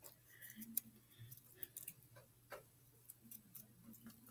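Faint, irregular small clicks of white-glue slime being swirled and stirred in its container.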